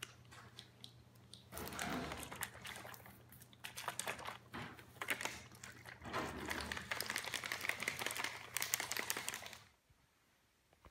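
Plastic crinkling and rustling as hands handle and scrunch plastic packaging, a dense crackle that starts about a second and a half in and stops abruptly near the end.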